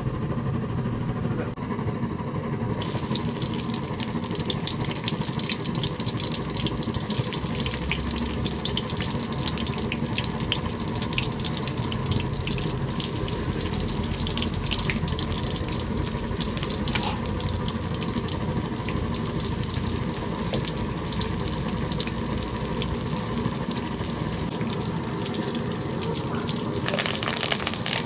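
Sliced onions sizzling and crackling in hot oil in an aluminium kadai, the sizzle starting about three seconds in and growing louder near the end as green leaves are added. A steady low rumble runs underneath.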